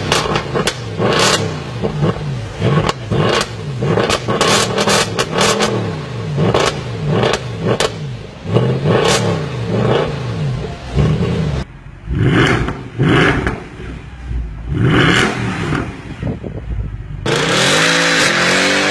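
Mercedes C63 AMG V8 exhaust with the engine revving hard, its pitch climbing and dropping over and over with sharp cracks between. Short separate throttle blips come in the middle, then one long sustained rev near the end.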